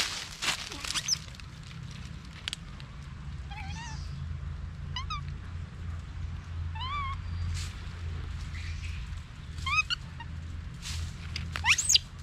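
Baby monkey giving short, high cries, four of them a second or two apart, each rising and falling quickly, while dry leaves crackle under it as it forages. A low steady hum runs underneath.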